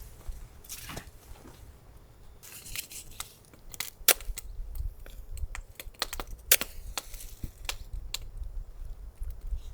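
A string of sharp clicks and knocks with short bursts of rustling and tearing, as of things being handled and packaging torn, over a steady low rumble.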